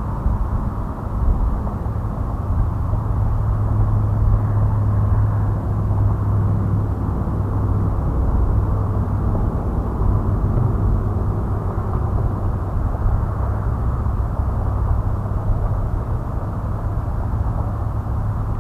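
Wind buffeting the microphone: a steady, loud rumble with no distinct events.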